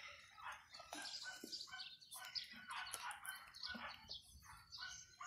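Faint bird chirps, short and repeated about twice a second.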